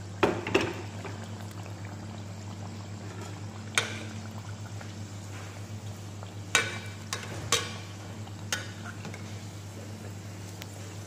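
Empanadas deep-frying in oil in a metal pot, a steady sizzle over a low hum. A metal ladle knocks and clinks against the pot twice right at the start, once about four seconds in, and three more times between about six and a half and eight and a half seconds.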